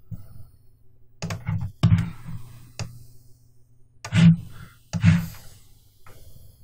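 Computer mouse clicks and knocks on the desk, a handful of separate sharp clicks, the loudest about four seconds in, over a faint low hum.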